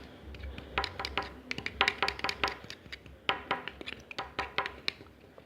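A small spoon stirring school-glue slime in a small pot, tapping and clicking against the pot in an irregular run of several knocks a second that thins out near the end.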